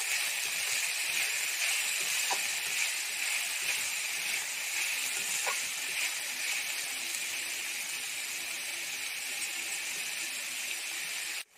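Chopped onion, tomato and green chillies sizzling in hot oil in a kadai with a steady frying hiss, a spatula stirring through it now and then. The sizzle cuts off suddenly near the end.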